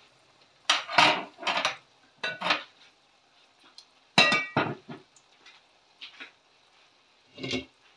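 Metal kitchen utensils and steel cookware clinking and clattering: a series of sharp knocks, the loudest about four seconds in with a brief metallic ring.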